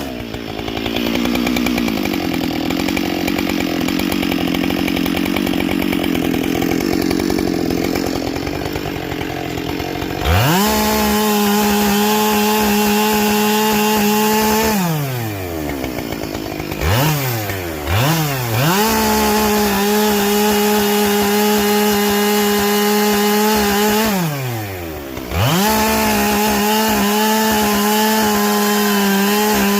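Husqvarna 572XP two-stroke chainsaw fitted with a carbide saw chain, running at full throttle under cutting load for about ten seconds. It is then revved in three bursts at full throttle, dropping back to idle between them.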